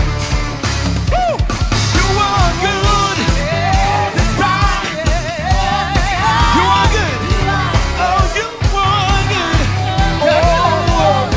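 Live gospel music: a singer's voice with vibrato and runs over a full band with bass and drums.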